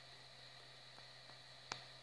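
Near silence: faint steady room tone with a low hum and a thin high tone, a couple of faint ticks, and a single sharp click near the end.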